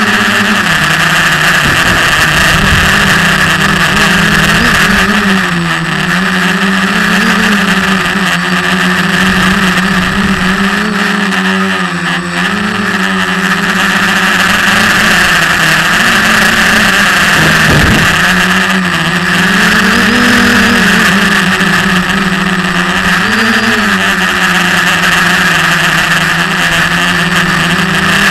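SK450 quadcopter's brushless motors and propellers buzzing close up from the on-board camera, a steady hum whose pitch wavers up and down with throttle changes, with a dip about twelve seconds in.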